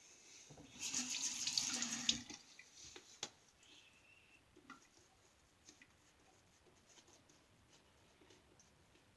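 Bathroom sink tap running briefly for about a second and a half, water splashing into the basin, followed by a few faint clicks and taps.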